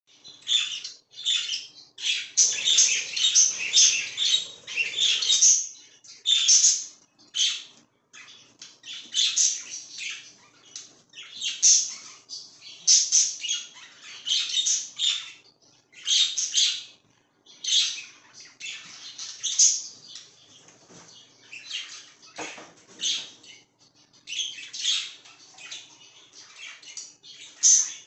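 Budgerigars chirping: a near-continuous run of short, high chirps one after another, with brief gaps between clusters.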